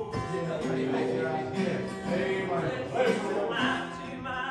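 Country-style song: a singing voice with guitar accompaniment, held notes shifting in pitch.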